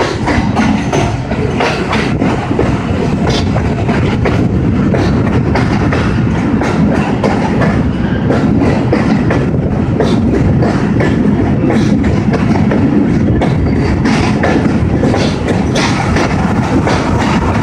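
Pakistan Railways rail car running along the track, heard from on board: a steady rumble of the wheels with irregular clickety-clack over the rail joints.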